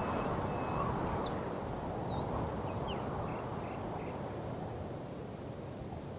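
Outdoor ambience: a steady rushing noise with a few faint, short bird chirps scattered through it.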